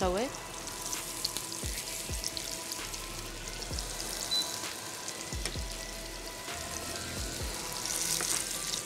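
Chicken breast sizzling in oil in a frying pan, the sizzle growing louder near the end as more pieces go into the pan. A few soft low thumps come from handling at the pan.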